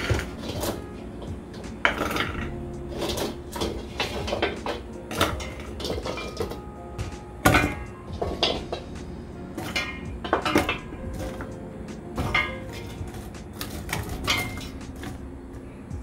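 Kitchen clatter: dishes, pots and utensils knocking and clinking in irregular strokes, the loudest about halfway through.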